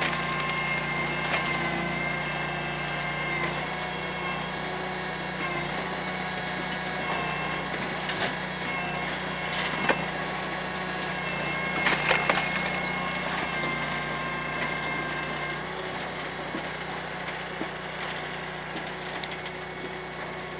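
Palax KS 35 firewood processor running steadily, with wood cracking and clattering as logs are split and pieces tumble through the machine. There are sharp cracks about eight, ten and twelve seconds in, the loudest near twelve seconds.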